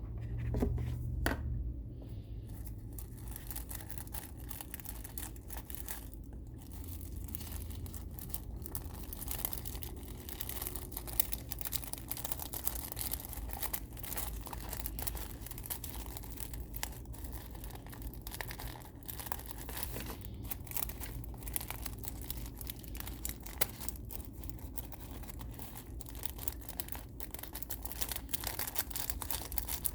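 Paper packaging crinkling and rustling as it is unwrapped by hand, a dense run of irregular crackles.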